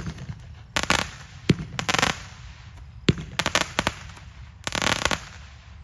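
A 200-gram consumer fireworks cake firing its aerial shots. Single sharp reports come about every second and a half, and four short bursts of rapid crackling follow them overhead. The last crackling burst dies away shortly before the end.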